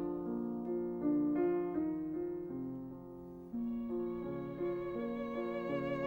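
Background music: a slow instrumental piece with violin and piano, a melody moving note by note over held lower notes.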